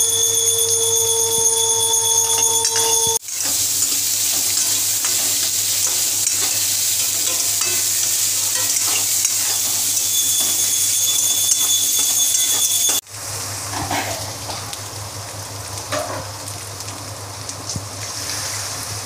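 Oil sizzling in a karahi as vegetable pieces fry and are stirred with a metal spoon. A steady whine sits over the first three seconds, and the sizzle drops to a softer level about two-thirds of the way in, with a few spoon scrapes against the pan.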